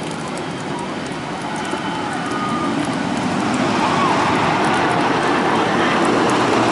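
A train on the narrow-gauge park railroad drawing closer, a steady running noise that grows louder from about halfway through.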